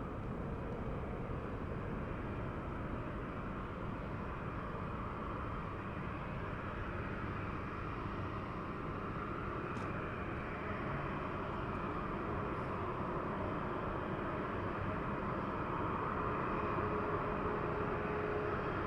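Jet engines of a departing Alaska Airlines Boeing 737 at takeoff power, a steady rushing roar that grows slightly louder near the end.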